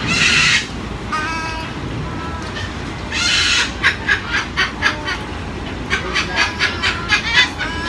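Umbrella cockatoo calling: a harsh screech at the start and another about three seconds in, short pitched calls between them, then runs of rapid repeated calls at about four or five a second.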